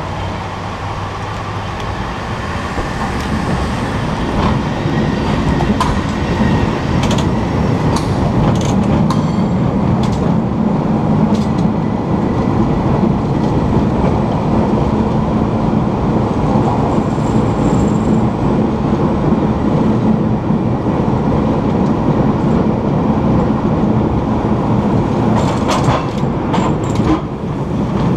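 San Francisco cable car running along its rails with a steady loud rumble and clatter, growing louder over the first few seconds. Scattered sharp clicks and knocks come through it, with a cluster near the end.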